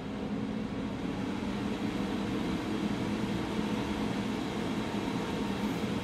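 120 mm high-speed cooling fan in the lid of a homemade bucket air cooler running. It makes a steady rush of air with a low hum, rising a little over the first second and then holding even.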